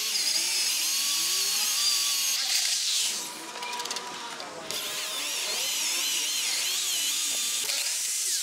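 Corded electric drill boring into a metal plate, its bit whining and wavering in pitch as it cuts. It runs in two stretches, stopping for about a second and a half a few seconds in.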